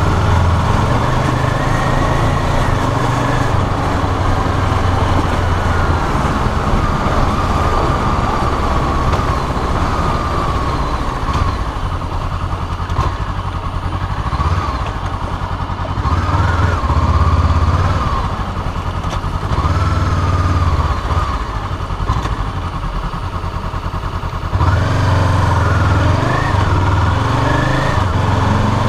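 Honda CBR500R's 471 cc parallel-twin engine running at low city speeds, heard from a camera mounted on the tank; the revs rise and fall with throttle and gear changes. The engine eases off for a slow stretch in the middle and pulls harder again near the end.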